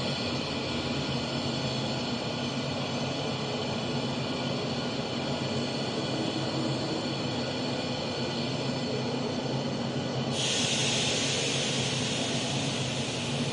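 A train at a station rumbling with a steady low hum, and about ten seconds in a loud hiss sets in suddenly and keeps going.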